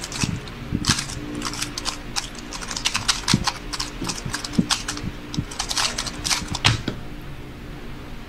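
A 3x3 speedcube being turned rapidly during a speedsolve, giving a fast, irregular run of plastic clicks and clacks. It ends with a louder knock about six and a half seconds in, as the solve finishes.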